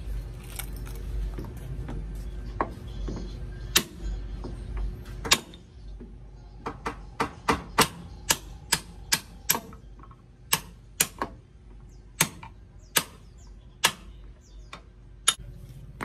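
Sharp metal hammer strikes driving a door hinge pin out of a van's front-door hinge: a few single blows, then a quick run of about three a second, then slower spaced blows.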